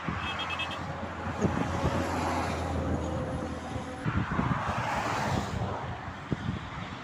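Motorway traffic going by: a low, steady engine drone for the first four seconds, with vehicles rushing past about two seconds in and again between four and five and a half seconds in.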